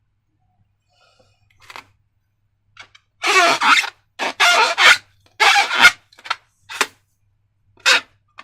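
Slime being squeezed and worked by hand: a run of short squelching bursts, some with a wavering squeak, starting about three seconds in.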